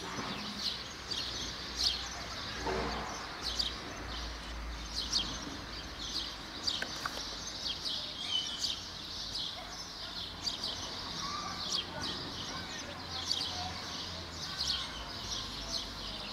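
Small birds chirping: many short, high chirps repeating through the whole stretch over a low, steady background rumble.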